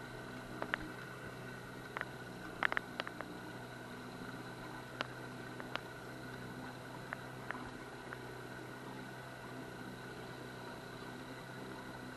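Boat motor running steadily at trolling speed, a constant hum, with a scattering of short sharp clicks and taps clustered in the first few seconds.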